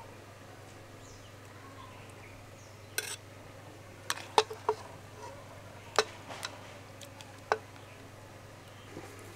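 A spoon clinking against a glass jar as thick jujube pickle is spooned in: about seven sharp clinks, scattered from about three seconds in to near the end, over a faint steady hum.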